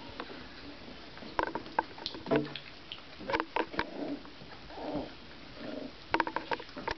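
24-day-old Basset Artésien Normand puppies play-fighting, giving several short squeaks and grunts, with clusters of light clicks and scuffles from their paws.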